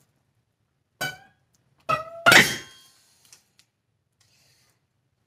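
Wire soap-loaf cutter knocking down through a block of soap three times, about a second in, near two seconds and just after, the last one loudest. The tensioned cutting wires and metal frame ring briefly after each knock.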